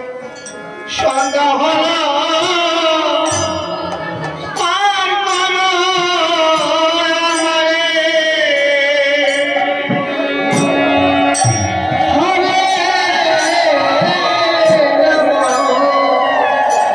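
Bengali devotional kirtan music: a sung melody with instrumental accompaniment and regular percussion strokes.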